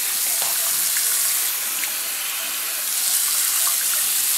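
Bathroom sink tap running steadily, the stream splashing over a guinea pig's wet fur held beneath it and into the basin.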